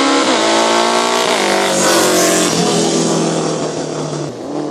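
Racing motorcycles accelerating hard in a sprint, their engines revving up in pitch with brief breaks at the gear changes, then dropping in pitch about two seconds in.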